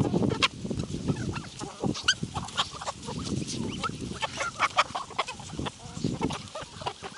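A mixed flock of free-ranging chickens and ducks clucking, cackling and calling, many short overlapping calls throughout, over a low rumble.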